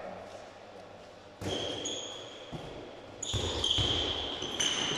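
A handball bouncing on a sports-hall floor several times, with short high squeaks of players' shoes on the court, in a large echoing hall.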